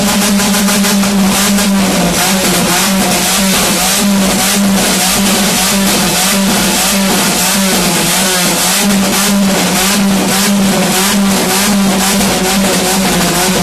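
Opel Kadett's engine held at high revs with a rapid, irregular crackle of pops from deliberately induced backfires in the exhaust, very loud. The revs dip briefly about two seconds in and again around eight seconds in.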